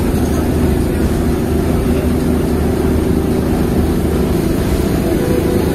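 Ship's diesel engine running steadily: a loud, even drone with a low hum.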